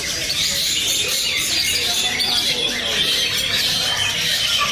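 Young long-tailed shrike singing a rapid, chattering song, fast as a sewing machine, over a dense chorus of other songbirds chirping.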